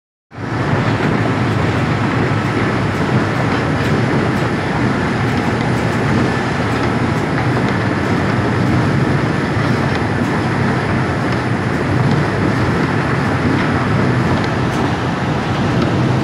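Steady, loud running noise of clay-extrusion and conveyor machinery in a ceramics plant, with faint light clicks now and then.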